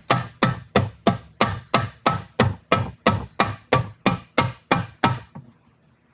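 Hammer tapping a tight-fitting part into a new bearing in an NP242 transfer case: a steady run of sharp metallic blows, about three a second, that stops abruptly about five seconds in.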